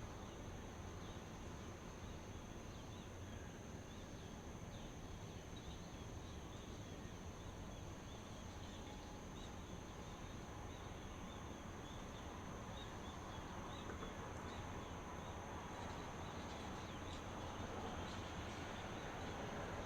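Outdoor ambience: a steady high insect drone, like crickets, with short chirps flickering just below it, over a low, even rumbling background noise.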